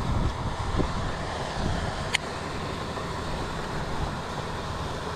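Steady rushing noise of wind on the microphone and moving water, with one sharp click about two seconds in.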